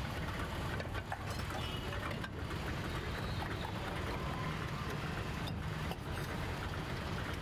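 Steady low rumble and hiss of busy street traffic, with no single event standing out.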